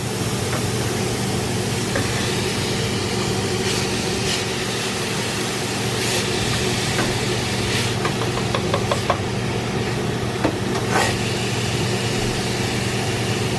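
Steady hum and hiss of a kitchen fan, with a few light knocks and scrapes of a spoon stirring vegetables in a pot.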